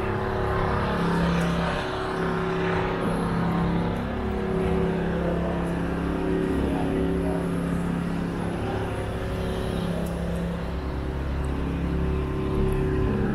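Motor vehicle engine running close by, a steady low hum.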